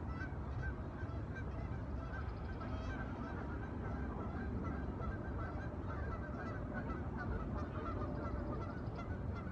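A flock of birds calling over and over, many short calls overlapping, over a steady low rumble.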